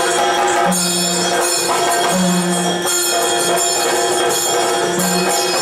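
Yakshagana dance music: chende and maddale drums with a dense jingling of bells, over a steady held drone.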